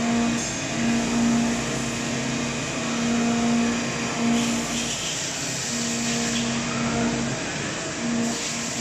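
Four-flute ZCC-CT TM-4R 16 mm end mill side-milling 1.4301 stainless steel at 3,580 rpm on a Doosan 5-axis machining centre, under a spray of flood coolant. A steady hiss carries a low hum at the tool's tooth-passing pitch, and the hum fades in and out every second or so.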